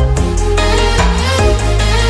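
Electronic background music with a strong bass line.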